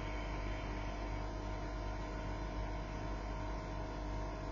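Steady hum and faint hiss with no other events: room tone of the recording.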